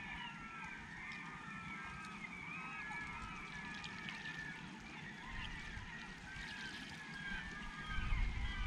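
A flock of birds calling over one another: many short, overlapping squawking calls. A low rumble comes up near the end.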